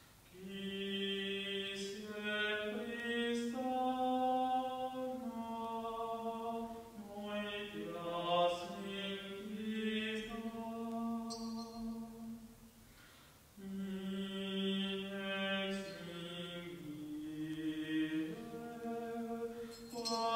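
A single voice slowly singing a hymn in long held notes that move up and down step by step, with a brief pause for breath about 13 seconds in: typical of an offertory hymn sung during the preparation of the gifts at Mass.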